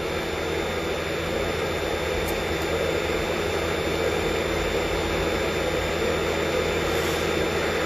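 Steady mechanical hum with hiss, even throughout, with no speech.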